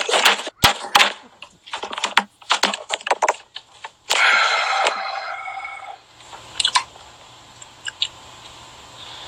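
Handling noise from a phone being held close to its microphone: a rapid run of clicks and knocks for the first few seconds, a brief rough rasping noise about four seconds in, then a few scattered taps.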